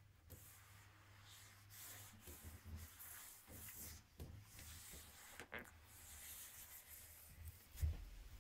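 Faint rubbing of a cloth wiping wet shower tiles and fittings dry, in uneven strokes with a few small knocks.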